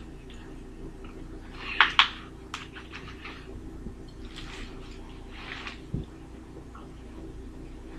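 Plastic takeout container and wrappers crinkling and clicking as they are handled on a table, with two sharp crackles about two seconds in and a dull thump about six seconds in.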